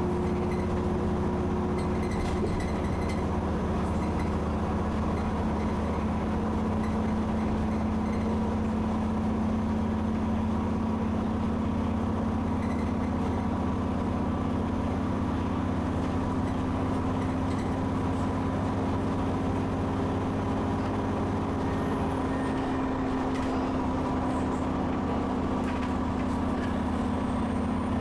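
Alexander Dennis Enviro 400 double-decker bus under way, its engine drone heard from inside the passenger saloon at an even level, the pitch edging slightly higher over the stretch. A faint thin high whine drops in pitch about three quarters of the way through; the uploader calls this bus's turbo a very nasty wheezing one.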